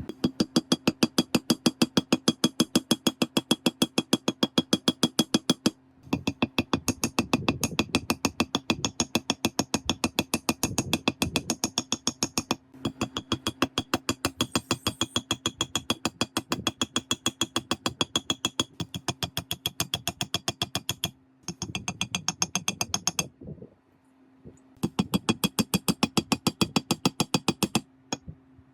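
A geared mechanism running with a fast, even ratchet-like clicking, several clicks a second, over a steady low hum. It runs in stretches of a few seconds and stops briefly several times.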